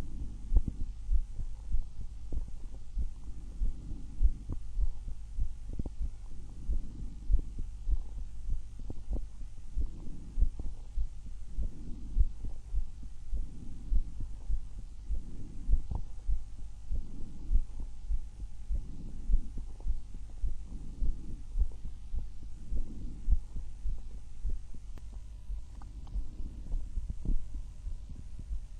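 A woman's own heartbeat and breathing heard at the chest: steady low thumping beats, about one to two a second, under soft breath sounds that swell and fade every couple of seconds.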